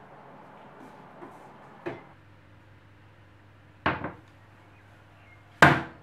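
A metal baking tray being taken out of an oven: separate clanks of metal against the oven rack and the tray set down, about two seconds apart, the last the loudest.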